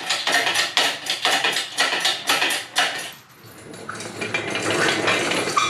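Ratchet wrench clicking in quick, even strokes, about four clicks a second, as it backs out the bolts holding the engine to the engine stand's mounting head. After about three seconds the clicking stops and a steadier scraping metal noise follows.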